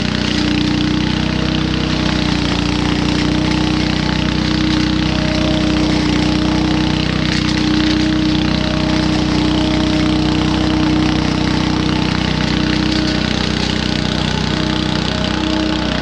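Petrol garden leaf vacuum running steadily at an even, constant engine speed, with a rushing noise over its engine note.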